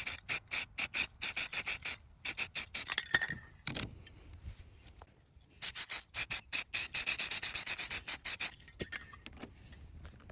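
Aerosol spray-paint can being shaken, its mixing ball rattling in quick strokes about five a second, in two spells with a pause between.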